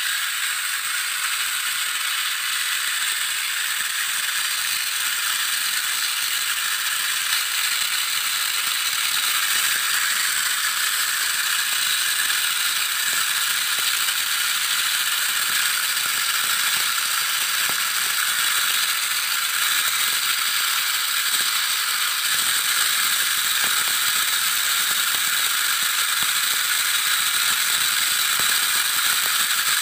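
Two battery-powered toy tanks whirring and rattling steadily through their small plastic gearboxes as they strain against each other in a string tug-of-war.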